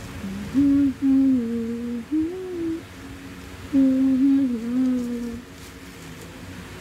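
A voice humming a short tune with closed lips, in two phrases of held notes that step up and down in pitch, each lasting about two seconds.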